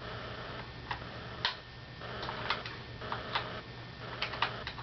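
Irregular sharp clicks and ticks of plastic parts as the ECHO1 G36C airsoft rifle is handled, some single and some in quick clusters of two or three.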